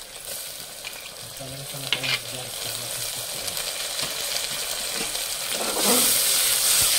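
Chopped onion, fenugreek leaves, green chillies and freshly added tomatoes frying in hot oil in a pressure cooker: a steady sizzle with stirring, which swells much louder near the end.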